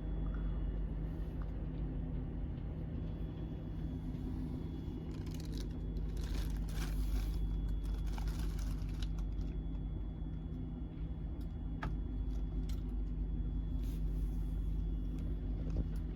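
Steady low rumble and hum inside a moving passenger train carriage, with a stretch of hissing rattles a few seconds in and occasional light clicks.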